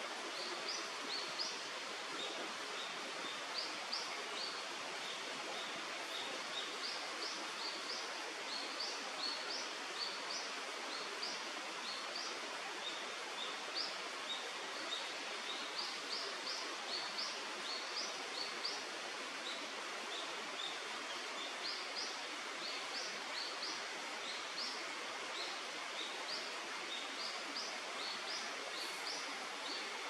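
Steady rush of river water, with many short, high chirps of small birds repeating throughout.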